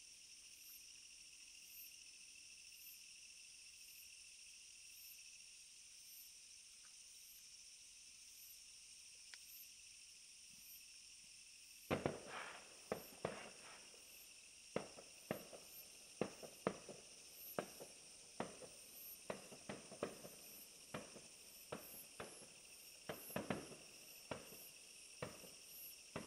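Insects chirring steadily in the night. About halfway in, a run of sharp, irregular pops and cracks begins, one or two a second, like fireworks bursting.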